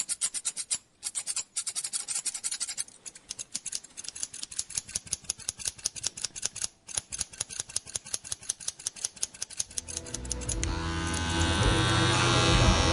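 Barber's scissors snipping rapidly and rhythmically, about seven cuts a second, with a few brief pauses. About ten seconds in, electric hair clippers start buzzing steadily and grow louder.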